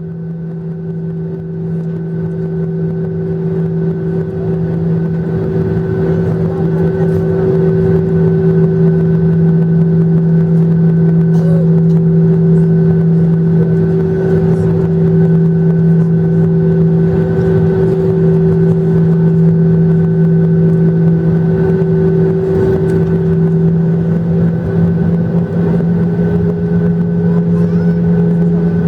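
Boeing 737-800's CFM56-7B jet engines running with a steady drone of several held tones, growing louder over the first few seconds.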